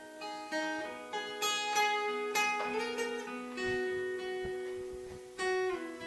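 Steel-string acoustic guitar fingerpicked, single notes and chords plucked one after another and left to ring.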